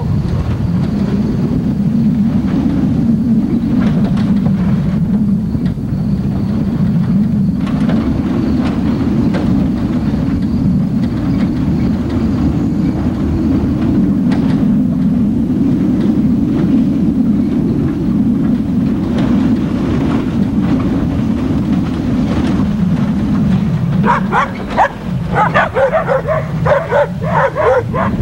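Steady low rumble of a truck driving on a dirt and gravel road, with scattered knocks from the rough surface. About 24 seconds in, a dog starts barking in quick, repeated yips over the rumble.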